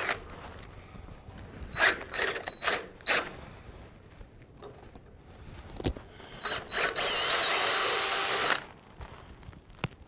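Cordless drill boring into a metal roll-cage tube. It runs in four short trigger bursts about two seconds in, then after a pause two more short bursts and a longer run of about a second and a half, with a whine that rises in pitch before it stops near the end.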